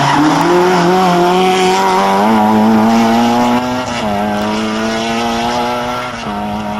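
Opel Corsa A GSi engine running loud, its pitch climbing for about four seconds and then dropping in a step, with a smaller drop near the end.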